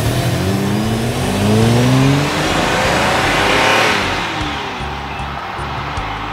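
Cartoon car engine sound effects revving up, rising in pitch, followed by a car passing by a little after three seconds, swelling and then fading. From about four and a half seconds, background music with a steady ticking beat.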